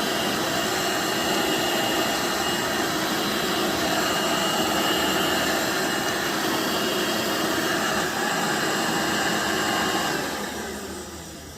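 Old Hoover vacuum cleaner running at a steady whine, its brush-roll belt broken. Near the end it is switched off and the motor winds down.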